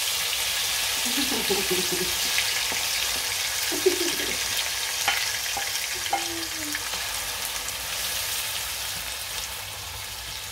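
Diced vegetables sizzling in hot oil in a frying pan as they are scraped in from a bowl with a wooden spoon. There are two sharp knocks about four and five seconds in, and the sizzle eases a little near the end.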